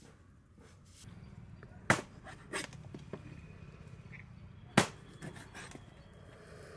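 Two loud, sharp knocks about three seconds apart, with a few lighter taps around them, over a low steady hum.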